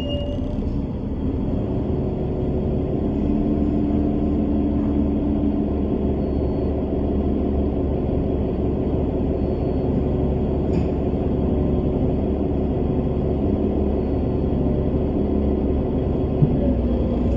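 Bus engine and road rumble heard from inside the cabin: a steady low drone with a faint hum, a light click about eleven seconds in and a short knock near the end.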